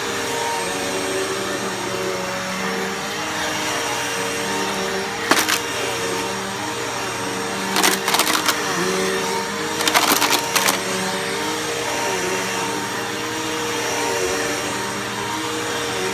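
Bissell PowerForce Bagless upright vacuum running steadily, its motor hum wavering up and down in pitch every second or two. A few short bursts of clicking, about a third of the way in and again around the middle, are typical of debris rattling up into the cleaner.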